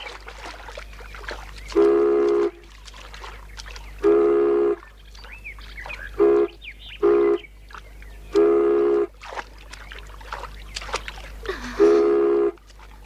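A girl's voice imitating a steamship horn: six flat, steady hoots, two long, two short, then two long.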